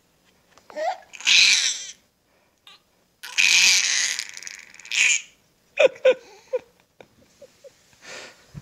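A baby nearly five months old squealing: two long, breathy, high-pitched shrieks, the second about two seconds long, followed by a few short coos.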